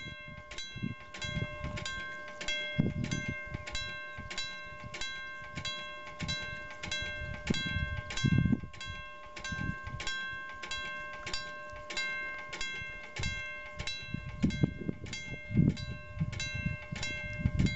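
Level-crossing warning bell ringing in rapid even strokes, about three a second, with a faint steady tone underneath.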